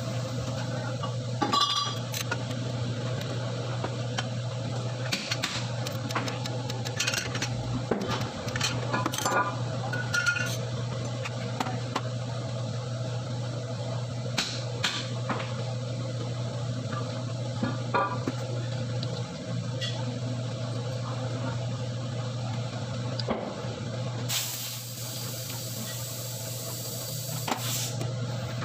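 Metal hand tools clinking and tapping now and then over a steady low hum. Near the end there is a hiss about three seconds long that starts and stops abruptly.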